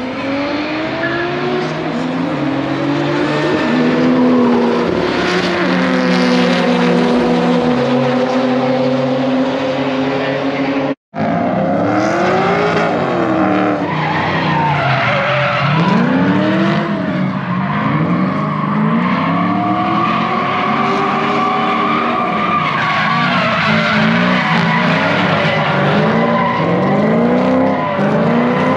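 Cars racing at high revs, their engine note rising and then holding steady. After a cut about eleven seconds in, drifting cars rev up and down again and again, with tire squeal and skidding.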